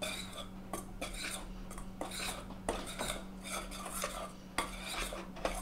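A spoon stirring dry flour mix in a stainless steel mixing bowl, scraping and clinking against the bowl's sides about twice a second, over a steady low hum.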